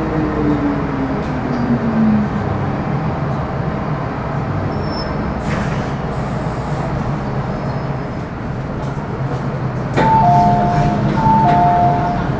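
Metro Cammell M-Train's GEC GTO chopper traction equipment whining down in pitch for about two seconds as the train brakes to a stop, then a steady hum while it stands. About ten seconds in, the train's two-tone electronic chime sounds twice, high note then low.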